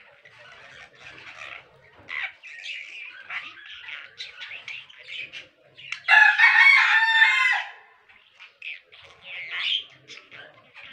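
A budgerigar chatters and warbles in quick, high chirps. About six seconds in comes one loud crowing call lasting nearly two seconds, after which the chattering resumes.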